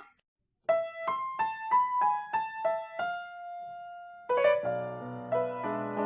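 Piano music: after a brief silence, a melody of single notes, one held longer, then fuller chords from a little past halfway.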